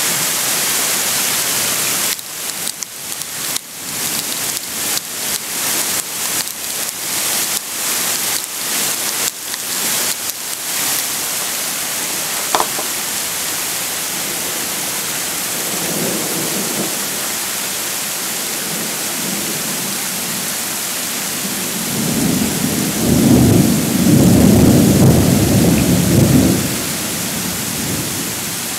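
Hail falling in a steady hiss-like patter, choppy and uneven for the first third. A faint roll of thunder comes about midway, and a strong, longer rumble of thunder near the end is the loudest part.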